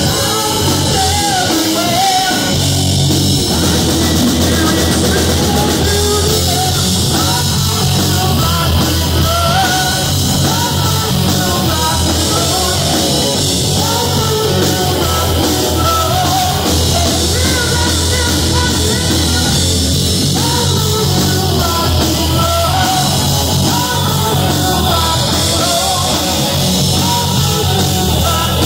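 Loud live rock band: a male singer sings over electric guitars and a drum kit, played without a break.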